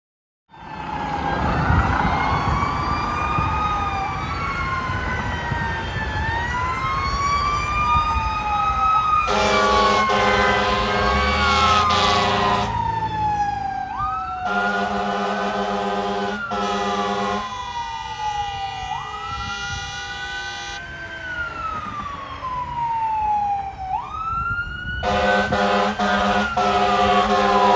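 Fire engine siren wailing, its pitch rising and falling over and over, starting suddenly half a second in. The engine's air horn sounds three long blasts, about ten, fifteen and twenty-five seconds in.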